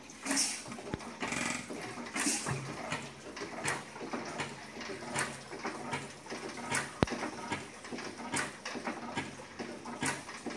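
4 hp IHC Victor hit-and-miss engine running, with a sharp firing stroke every second or two and the engine coasting in between. Water splashes steadily over its cooling screen. A single sharp click about seven seconds in is the loudest sound.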